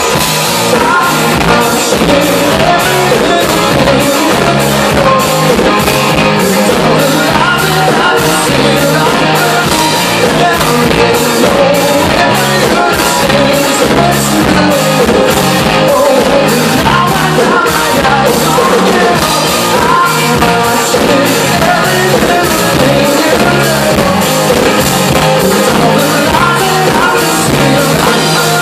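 Live rock band playing loud: distorted electric guitars, bass and a drum kit keeping a steady beat, with a male lead vocal singing over them.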